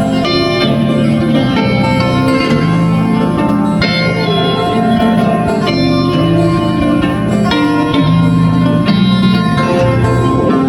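Background music led by plucked guitar, with a steady rhythm of repeating note patterns.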